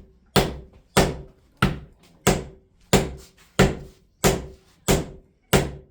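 Steady, evenly paced hammer blows on wood, about nine strikes at roughly one and a half a second, each a sharp knock with a brief ring.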